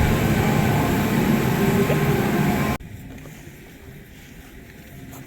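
Loud, steady mechanical rumble and low hum of a moving passenger vehicle that is slowing, cutting off abruptly about three seconds in to a much quieter background.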